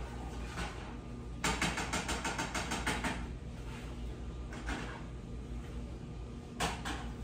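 A metal utensil clinks rapidly against a saucepan, about ten strikes a second for under two seconds, as a glaze is stirred on the stove. A few single knocks come later, over a steady low hum.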